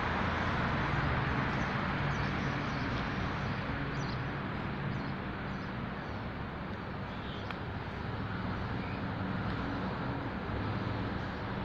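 Steady traffic noise with the low, even hum of a motor vehicle engine running.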